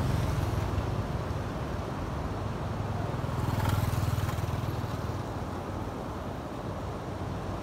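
Small motorbike engines running as motorbikes pass on a road, with general traffic noise; the loudest passes close by about four seconds in.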